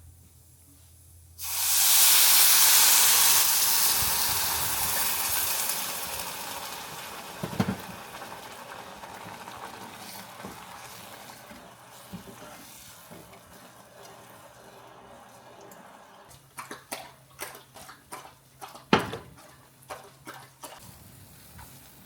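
A sudden loud hiss that starts about a second in and slowly fades away over several seconds. Near the end comes a run of small clicks and taps, with one louder knock.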